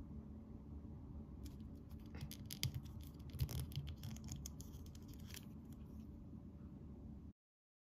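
Fingers and fingernails handling a small plastic L.O.L. Surprise doll: faint scattered clicks and scratches with two louder knocks around the middle, as the doll's head is turned, over a steady low hum. The sound cuts off to silence near the end.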